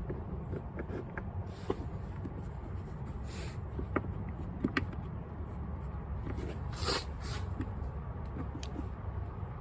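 Scattered small clicks, taps and a couple of brief rustling scrapes from handling a cargo net and its fittings in a truck's front trunk, over a steady low rumble.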